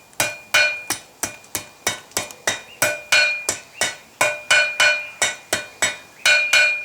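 Hand hammer striking hot rebar on an anvil in a steady run of about three blows a second, each blow ringing, as the tip of the bar is rolled down into a curl.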